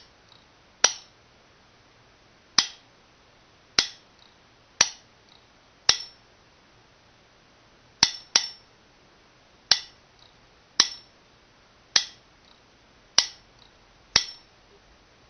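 Homemade telegraph sounder clicking as code is tapped out: the metal strip armature snaps down onto the wire-wound nail electromagnet each time the key is pressed. About a dozen sharp metallic clicks at an uneven pace of roughly one a second, some followed by a faint softer tick.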